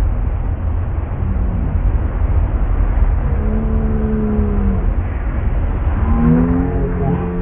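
Motorboat running at speed while towing, with its engine rumble, rushing wake water and heavy wind buffeting the microphone. Long held tones come in about three seconds in and again near the end.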